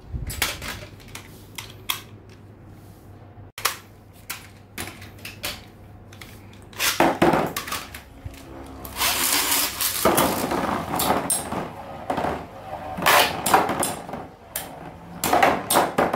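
Infinity Nado battle spinning tops clashing in a battle arena. There are repeated sharp clacks as they hit each other and the arena wall, and several louder bursts of rapid grinding, rattling contact, the loudest near the end.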